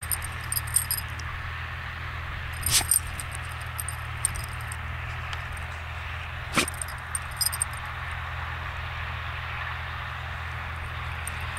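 A puppy digging in dry, hard-packed soil with its front paws: bursts of claws scratching and dirt scattering, with two sharp snorts as it pushes its nose into the hole, about three seconds in and again near seven seconds. The scratching thins out in the last few seconds as it stops digging.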